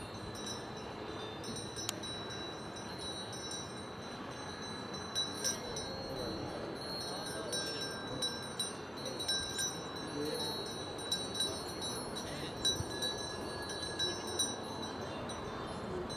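Cowbells clanking irregularly from a pasture, with ringing tones that come and go over a steady outdoor hiss.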